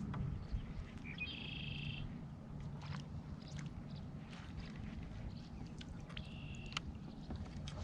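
Wind rumbling on the microphone, with two short, buzzy animal calls, one about a second in and another about six seconds in, and a few faint clicks.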